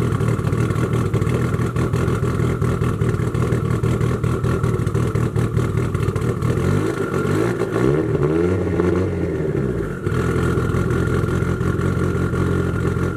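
Mitsubishi Lancer Evolution VIII's turbocharged 4G63 inline-four running steadily on a cold start through a Tomei titanium exhaust. About seven seconds in, the engine revs up once and drops back down over about three seconds.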